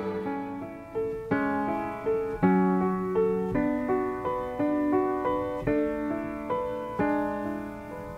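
Solo piano playing a slow melodic phrase, notes and chords struck about once a second and left to ring and fade.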